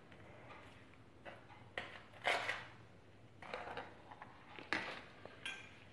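A steel spoon scraping and rolling a batter-coated potato ball through breadcrumbs in a plastic plate: several short, faint scrapes and rustles, the loudest a little over two seconds in.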